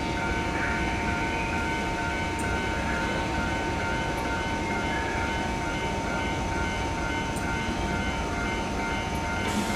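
Electric train standing at a station platform, its onboard equipment giving a steady hum with several constant whining tones over a low rumble. A brief hiss sounds near the end.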